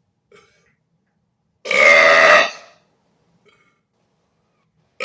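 A man's deliberate loud burp, lasting about a second, starting almost two seconds in.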